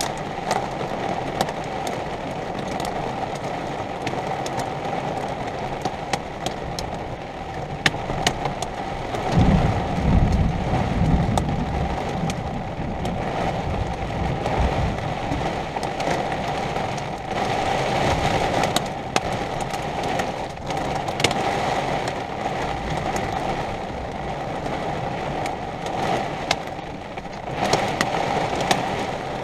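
Thunderstorm on an RV: steady rain and wind noise dotted with sharp ticks of drops striking. A low rumble of thunder comes in about nine seconds in and lasts a few seconds.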